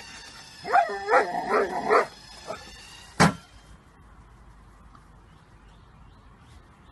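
A dog gives a quick run of excited yips and barks. About three seconds in, an automatic ball launcher fires a ball with a single sharp thump.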